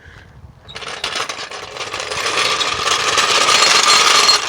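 Metal floor jack being rolled along the ground, its wheels clattering in a continuous rattle that starts about a second in and grows louder as it comes closer.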